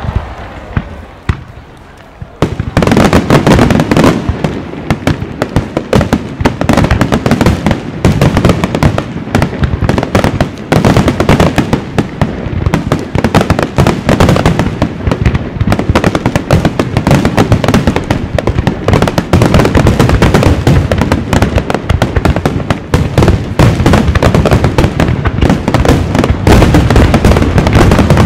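A rapid barrage of aerial fireworks shells bursting: a starmine. A few separate bangs come in the first two seconds, then the booms and cracks run together into a dense, continuous volley.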